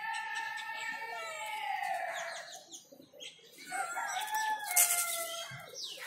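A rooster crowing: one long call that dips in pitch at its end, then a second, shorter call with harsher, noisier sounds about four seconds in.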